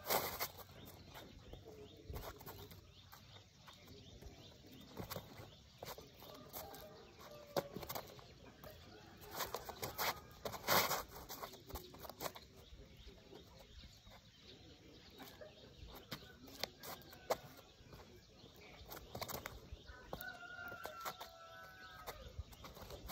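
Sneakers scuffing and tapping irregularly on a concrete rooftop during boxing footwork, with a few louder scuffs about halfway through. A few faint bird calls come and go in the background.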